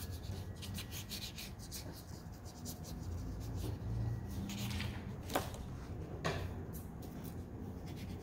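Bristles of a water brush stroking over watercolour paper, a faint scratchy rubbing, with two small sharp ticks about five and six seconds in.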